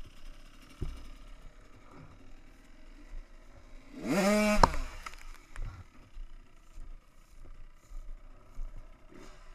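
A dirt bike's engine revs once, briefly and loudly, about four seconds in, its pitch sweeping sharply up and dropping back. Otherwise there is only faint background noise and a light knock near the start.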